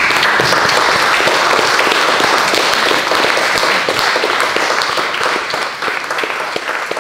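Audience applauding. Many hands clap together, starting suddenly and thinning out near the end.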